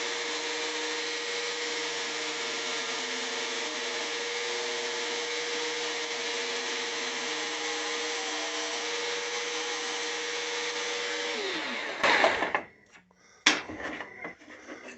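Rockwell BladeRunner X2 tabletop jigsaw running steadily with an even motor hum while cutting a freehand circle in wood. About eleven and a half seconds in it is switched off, and the hum falls in pitch as it winds down. A few loud knocks and clatters follow as the workpiece is handled.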